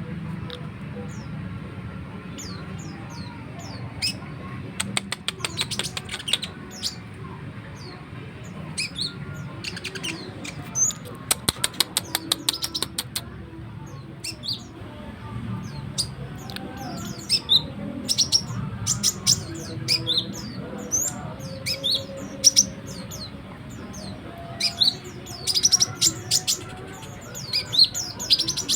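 A konin songbird singing nonstop in rapid chattering runs of sharp chips and short whistled notes, in the 'nrecetan' style.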